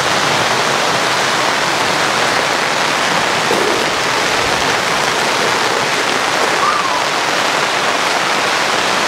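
Heavy rain pouring down, loud and steady.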